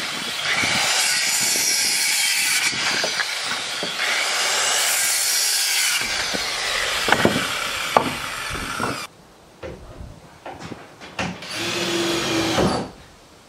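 Corded circular saw cutting through a sheet of plywood, running steadily for about nine seconds. Then a few knocks and, near the end, a short whir of a small power tool.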